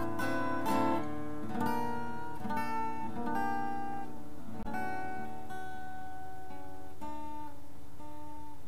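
Background music: a slow acoustic guitar picking single notes, thinning to a few last notes near the end.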